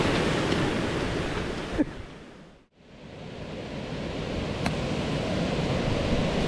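Rushing, churning water at a weir as a cast net is hauled out, fading out about two and a half seconds in, with a short sharp sound just before. It then fades back into a steady outdoor rush of river water and wind.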